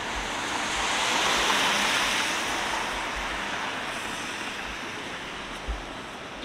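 City street traffic: a vehicle passing close, its tyre and road rush swelling about a second in and fading away over the next few seconds, with low thumps underneath.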